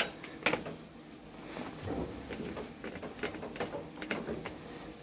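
A sharp knock about half a second in, then a run of light clicks and knocks as the shift lever is worked by hand with its new pool-ball knob fitted.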